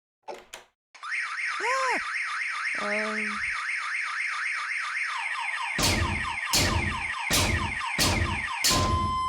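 Car alarm siren cycling through its tone patterns. It opens with a fast up-and-down warble, gives a short swooping chirp and a held buzzy tone, then five loud blasts about 0.7 s apart, and switches to alternating steady beeps at the end.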